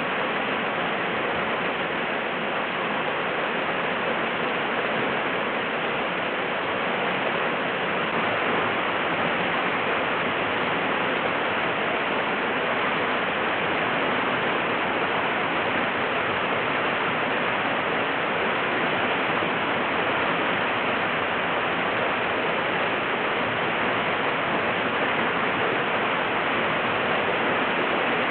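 Steady rush of whitewater, an even hiss of moving water at an unchanging level.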